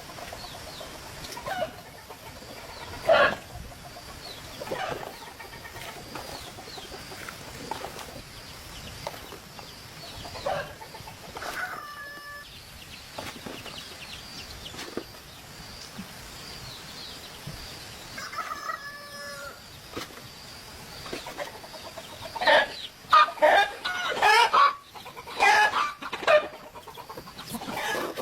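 Chickens clucking and calling at intervals, with a busier, louder run of clucks and squawks near the end.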